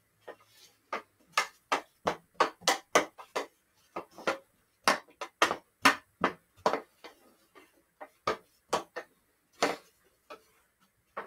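Hockey stick blade stickhandling an orange ball: a run of sharp clacks as the blade taps the ball from side to side, two to four a second, with short pauses between runs.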